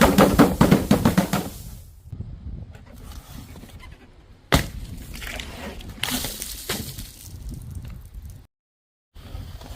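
Glass bottles smashing. A loud shattering crash with scattering shards fills the first two seconds, a single sharp crack comes about four and a half seconds in, and another burst of breaking glass and tinkling fragments follows around six seconds.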